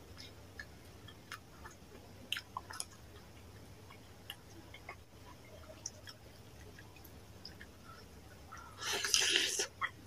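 A person eating fish curry and rice by hand: wet chewing and small mouth clicks and smacks. Near the end comes a louder, wet, noisy burst about a second long.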